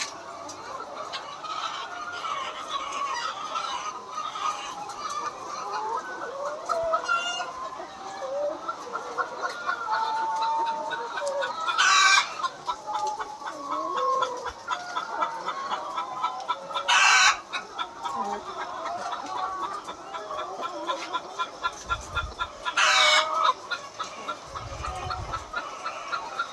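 A large flock of laying hens clucking and squawking all together in a steady din, with three louder, sharper calls standing out about midway, two-thirds of the way through and near the end.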